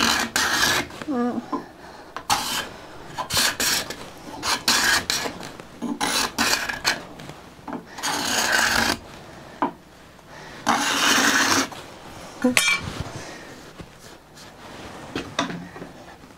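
Steel card scraper scraping along the edge of a wooden board clamped in a vise, in a series of dry, rasping strokes. Most strokes are short, with two longer ones about eight and eleven seconds in. The freshly sharpened edge is cutting curled shavings rather than dust.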